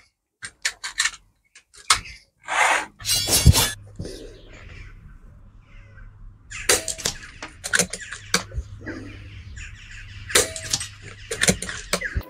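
Air rifle being fired at hanging trainers: several sharp cracks in groups, with the clicks of the bolt being cycled between shots.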